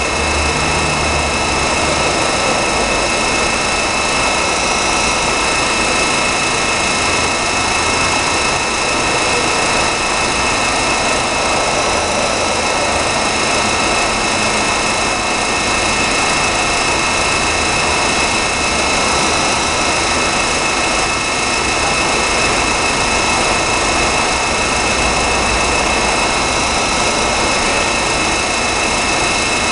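Zayer KF3000 CNC bed mill running, a steady machine drone with several high, even whining tones over it and a low rumble that swells and fades.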